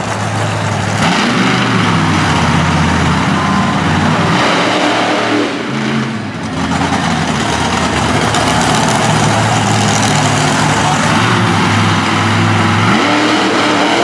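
Monster truck's big-block engine running loud at high revs, easing off briefly about halfway through, then back on the throttle until it drops away near the end.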